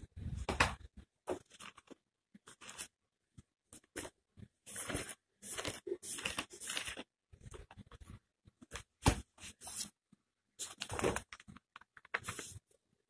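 Handling noise: irregular scratchy rustling in short bursts with pauses between, the sharpest near the start and about nine seconds in.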